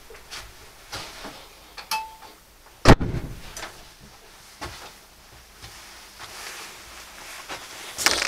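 Someone coming into a garage workshop. A short beep sounds about two seconds in, then a door shuts with a loud bang just before three seconds, followed by scattered light knocks and movement. Near the end a small object is set down with a scrape on a wooden desk right by the microphone.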